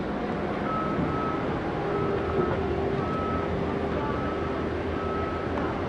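Electronic warning beeper sounding a short high beep about once a second over a steady low vehicle or machinery rumble.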